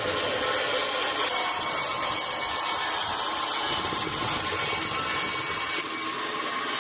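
Power tool grinding steel for a forged saber blade, one steady, even run of grinding noise that eases off slightly near the end.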